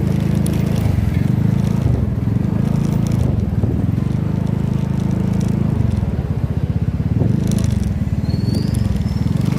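A vehicle's engine running steadily while travelling along a road, with a fast even firing pulse and road and wind noise.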